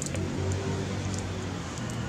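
A motor vehicle's engine running steadily, heard as a low hum.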